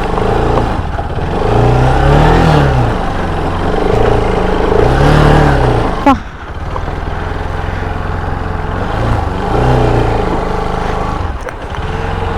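Bajaj Pulsar RS200's single-cylinder engine revving up and easing off again and again as the bike climbs a rough, stony track. Loose stones grind and clatter under the tyres. There is a sharp knock about six seconds in.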